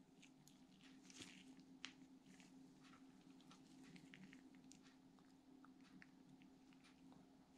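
Near silence: faint, scattered light clicks of small greased steel rollers being pressed into the brass roller cage of a Favorit coaster-brake hub, over a low steady hum.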